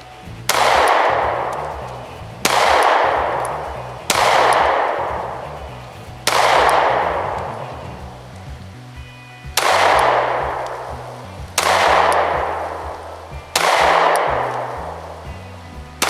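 Glock 43X 9mm pistol firing single shots at a slow, deliberate pace, seven in all, mostly about two seconds apart with a longer pause midway. Each shot is followed by a long echoing decay.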